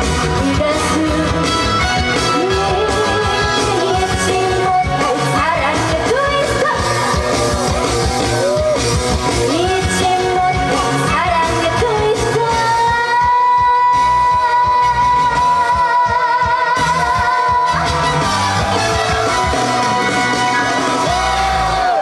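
A female trot singer singing live over a loud band accompaniment with a steady beat, holding one long note with vibrato in the middle. The song ends and the music stops near the end.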